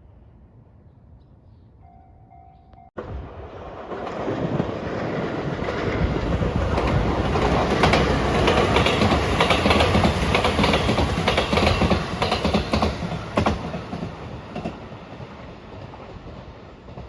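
A train passing close by: after a brief faint tone, the sound cuts in suddenly about three seconds in and swells to its loudest midway, with the wheels clacking rapidly over the rail joints, then fades away.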